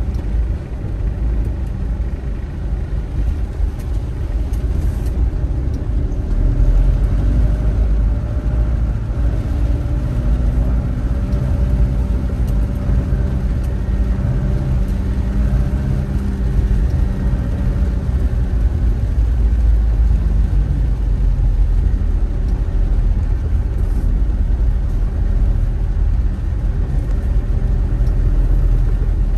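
A car driving: a steady low rumble of engine and road noise, growing a little louder about six seconds in.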